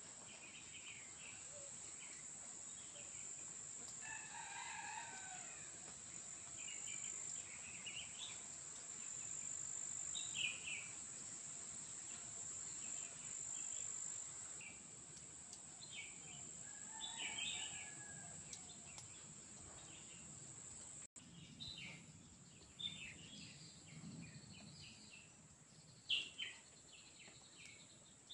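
Steady high-pitched drone of insects, with short bird chirps scattered through it. A rooster crows twice, about four seconds in and again about seventeen seconds in.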